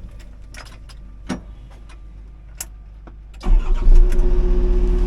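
Mini excavator's diesel engine cranking and catching about three and a half seconds in, then running steadily, after a few light clicks in the cab.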